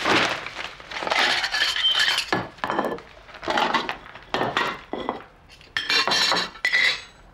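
Cutlery and metal dishes clattering and clinking in a series of short bursts, some with a brief ringing tone.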